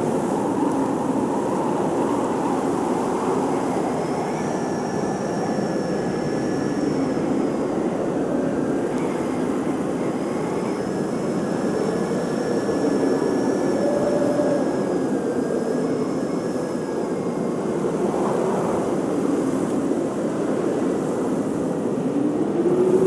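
Blizzard wind blowing steadily, with a low howl that slowly rises and falls in pitch and thin high whistles drifting above it.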